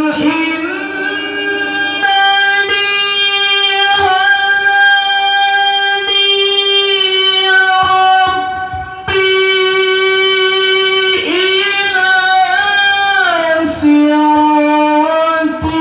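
A male qari reciting the Quran in the melodic tilawah style in a high voice through a microphone and loudspeaker. He holds long high notes and turns them into ornamented runs that slide up and down near the end, with short pauses for breath between phrases.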